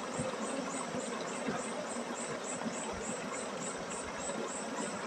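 Honeybees buzzing around an opened log hive in a steady drone, with a high insect chirp repeating about four times a second.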